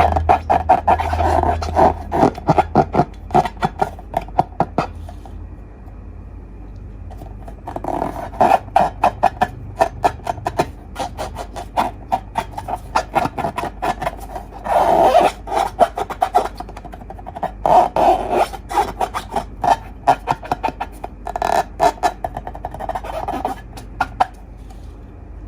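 Slime being squished and kneaded by hand, in bursts of rapid clicking and popping with short pauses between them.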